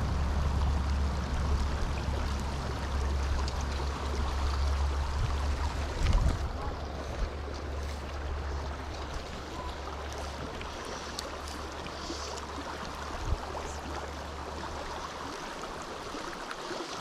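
Small mountain creek running steadily over rocks, an even rushing of water, with a low rumble underneath that fades near the end. There are two brief knocks, one about six seconds in and one about thirteen seconds in.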